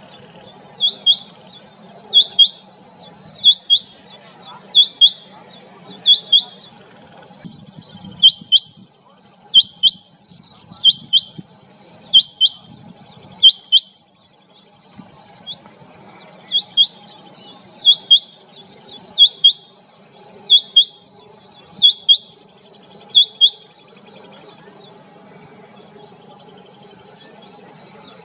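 Rain quail calling: loud, high two-note calls repeated about once every 1.3 seconds in two runs, with a short break in the middle, then stopping a few seconds before the end.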